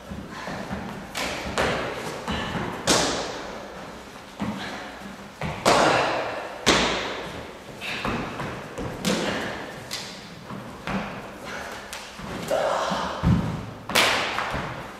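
Sharp slaps and thuds of an unarmed stage-combat routine: about a dozen irregularly spaced hits and stamps, each with a short echo off bare walls.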